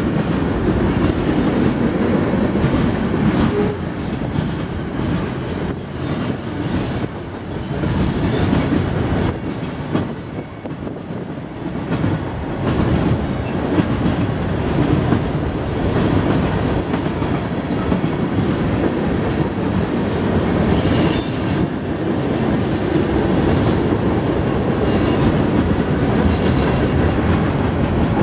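Cars of a mixed freight train rolling past: a steady rumble and clatter of steel wheels over the rail joints, with a few brief high wheel squeals, clearest about three-quarters of the way through.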